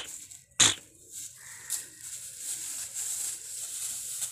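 Dry straw bedding rustling and crackling under a young calf as it noses through it and kneels down to lie in it, growing louder from about a second and a half in. Near the start come two loud short puffs, about 0.7 s apart.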